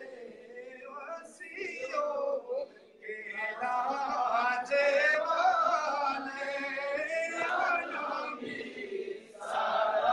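Men's voices singing a devotional Islamic naat together, with long held, wavering notes and short breaks between phrases. The singing is softer for the first few seconds, then comes in fuller and louder.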